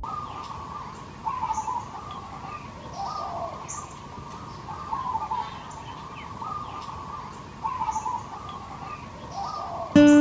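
Birds calling in a tropical garden, one call repeating about every two seconds over a steady background of bird song.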